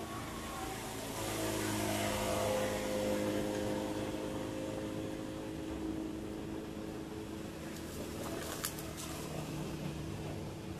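A motor vehicle's engine running with a steady hum, growing louder about a second in and easing back after a few seconds, with a single sharp click near the end.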